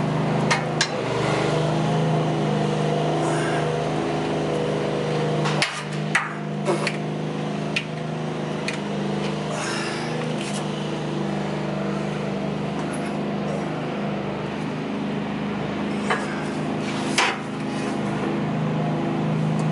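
Hand work on a pickup's fuel filter from underneath: scattered sharp clicks and metal knocks as the filter and its fittings are screwed into place, over a steady low hum.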